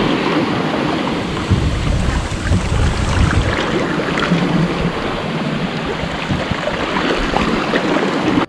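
Water rushing and splashing along a sailboat's hull as it sails through chop, with wind buffeting the microphone.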